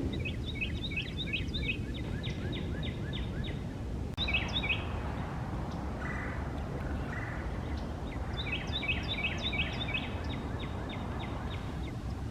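A songbird singing: a quick run of high notes that turns into a fast trill, sung twice with a short call between, over a steady low outdoor rumble.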